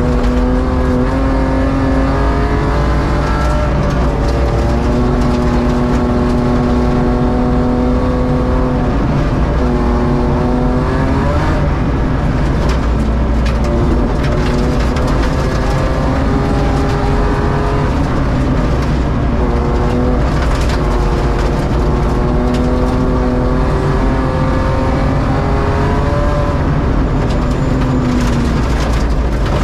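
BMW E36 rally car's engine running hard on a gravel stage, heard from inside the cabin, its note held high and then dropping and climbing again with each gear change and lift of the throttle. Gravel ticks and pings against the underside throughout.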